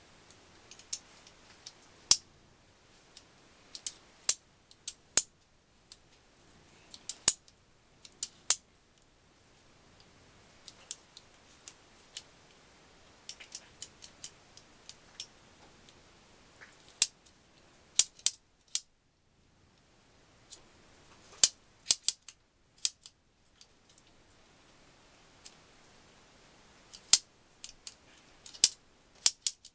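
Irregular sharp metallic clicks and taps as small steel parts of an Adler MB250 gearbox (the shift drum with its fork and shaft) are handled and fitted together by hand.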